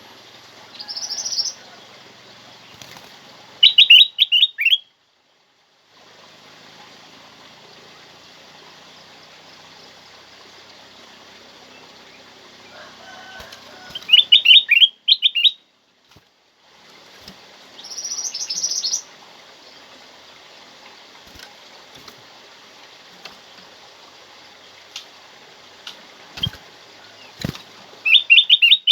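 Kutilang emas (ruby-throated bulbul) singing: short phrases of quick, bright, rising notes, each lasting about a second and coming back every ten seconds or so, some led by a higher brief note, over a steady hiss of background noise.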